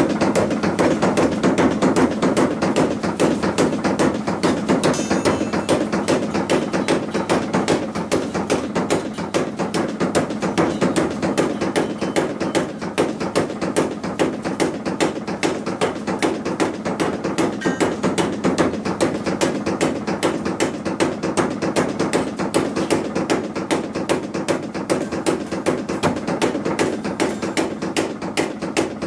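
Water-powered tail-helve trip hammer striking a red-hot iron bar on its anvil in a steady, rapid rhythm of about three metal-on-metal blows a second.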